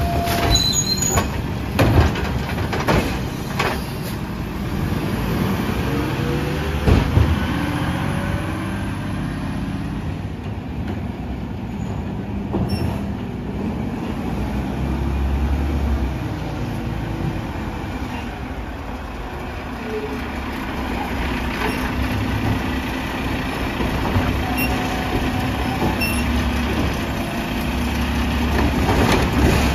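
Mack LR side-loading garbage truck running as it moves along the street. Sharp knocks come in the first few seconds, and louder low surges and clatter come near the end as its Labrie Automizer arm lifts and tips a trash cart.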